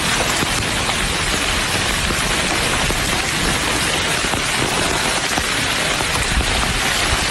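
Heavy rain falling steadily: a dense, even hiss of drops with fine scattered patter.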